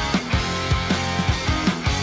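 Background rock music with electric guitar and a steady driving drum beat.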